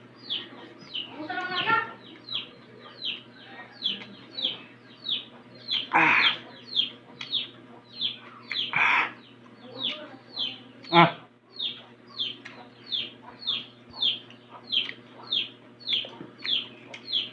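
Chickens calling: a steady run of short, high peeps that fall in pitch, about two a second, with a few louder calls about six, nine and eleven seconds in.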